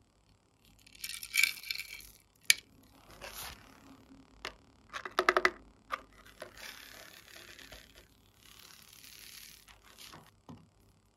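Small plastic containers and slime add-ins being handled: two bursts of quick rattling clicks, about a second in and again around five seconds in, with single sharp clicks between them. Then a softer, steady rustle as thick purple slime slides out of a jar into the tray.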